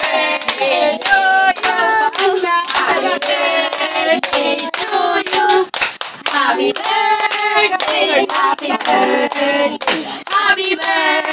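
A group of children singing a birthday song together while hands clap along.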